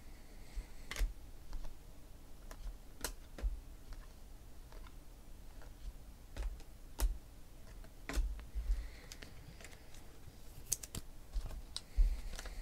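Stiff baseball trading cards being flipped through by hand, each one slid off the stack with a sharp click or flick, at an uneven pace. A few dull knocks come in among the clicks.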